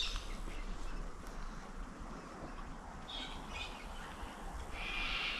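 Birds calling in outdoor riverside ambience, with a short burst of calls about three seconds in and a longer run of calls near the end.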